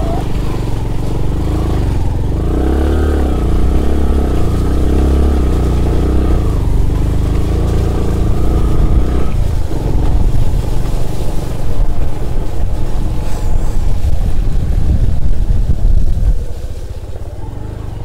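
Bajaj Platina 100 cc motorcycle's single-cylinder four-stroke engine running while riding a muddy dirt track, its note rising and falling in the first several seconds. From about halfway a rougher, louder rumble takes over, easing off near the end.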